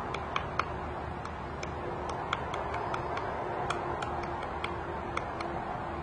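Female pileated woodpecker chiselling into a tree trunk: sharp, irregular wooden taps, about three a second, as it excavates a feeding hole.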